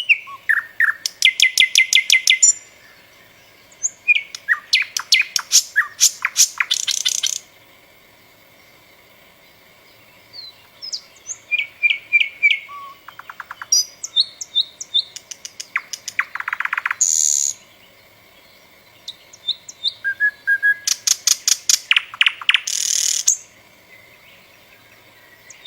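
A songbird singing in separate phrases of rapid repeated notes and trills, each a few seconds long, with short pauses between them.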